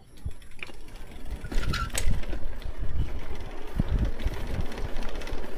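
Mountain bike rolling over a lane of paving tiles, the tyres rumbling low and the bike rattling and knocking over the tile joints, with a sharper click about two seconds in.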